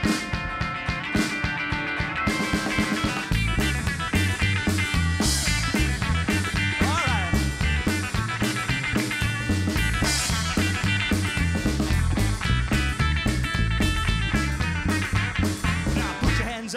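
Live rockabilly band playing an instrumental break with no singing: a drummer hitting snare and cymbals to a quick beat, and a stepping bass line that comes in about three seconds in.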